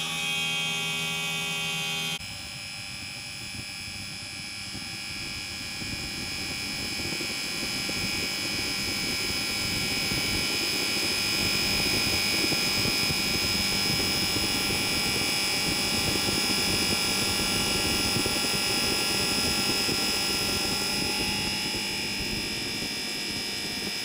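LG system air conditioner's outdoor unit running, its scroll compressor and condenser fan making a steady whirring drone with a high whine. About two seconds in the sound changes abruptly, then it grows louder over the next several seconds and holds steady.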